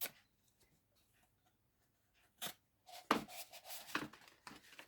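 Handling noise from unwrapping a packaged sail: a couple of light clicks, then from about three seconds in, a run of crinkling, rustling packaging.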